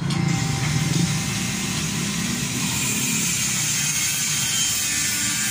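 A motorcycle engine running steadily with a low hum and a steady hiss. It cuts in suddenly at the start.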